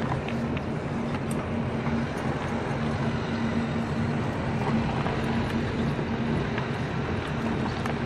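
Car engine running with road noise, heard from inside the cabin while driving: a steady low hum under an even rush of tyre and wind noise.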